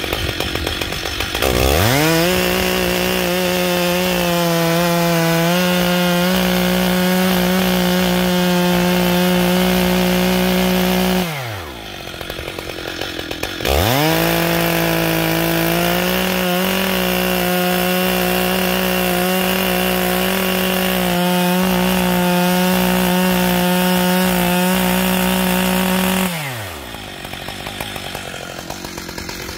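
Stihl MS880 chainsaw's big single-cylinder two-stroke engine, with a freshly sharpened chain, cutting a log twice at full throttle. Each time it revs up from idle and holds a steady high pitch for about ten seconds, then drops back to idle. The idle between cuts is brief, and the last one comes near the end.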